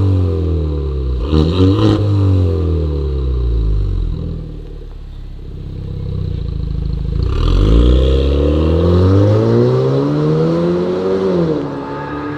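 Kia Stinger's 2.0-litre turbo four-cylinder through a custom valved exhaust with the valves open (loud mode). A quick rev blip comes about a second and a half in, then the engine settles toward idle. The car then pulls away, its note rising for about four seconds before dropping sharply at an upshift near the end.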